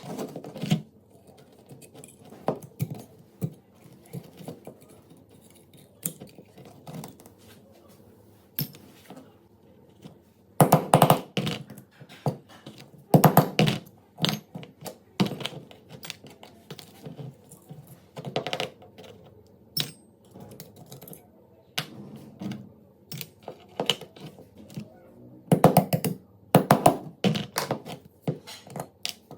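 Small metal pistol parts clicking, clinking and knocking on a hard surface as they are handled, in irregular clusters of sharp taps.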